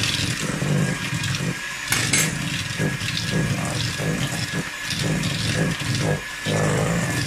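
Electric hand mixer running steadily, its twin beaters churning thick creamed butter, sugar and egg for cookie dough in a stainless steel bowl, with a few brief dips in the sound.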